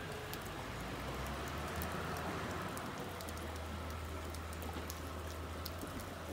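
Steady rain falling, with many sharp raindrop patters and drips close by. A low steady hum sits underneath from about a second in.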